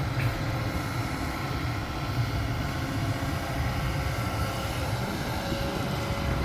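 Steady low rumble of a vehicle on the move, engine and road noise running evenly.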